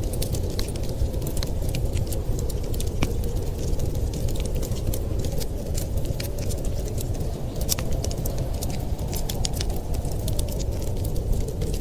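Wood fire crackling in a fireplace, with frequent irregular sharp pops, over a steady low rumble of snowstorm wind.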